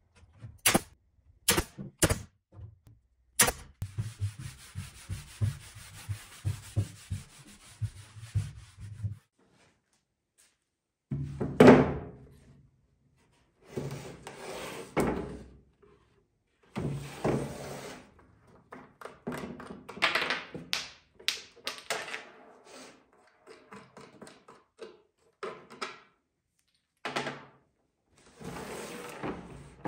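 A nail gun fires four sharp shots in the first few seconds, tacking a strip of trim moulding onto a wooden drawer front. Then comes a few seconds of steady scratchy noise, followed by irregular rubbing, wiping and knocking as hands work over the drawer.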